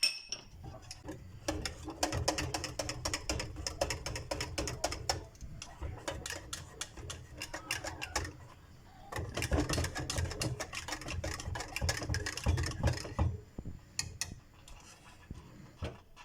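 A hand whisk beating lemon cream in a saucepan, clicking rapidly against the pan in two bouts with a pause between. A spoon of butter is being worked into the cream, which has started to thicken.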